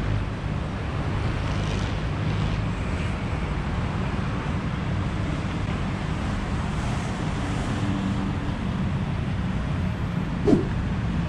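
Steady rumble of road traffic, with vehicles going by. About ten and a half seconds in, a brief rising chirp stands out as the loudest moment.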